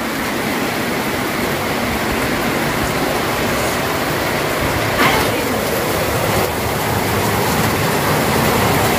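Heavy rain falling, a steady even hiss with a brief knock about five seconds in.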